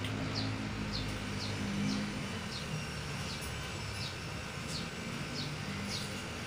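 Outdoor ambience: a short high chirp repeating about three times every two seconds, over a low hum that is strongest in the first two seconds.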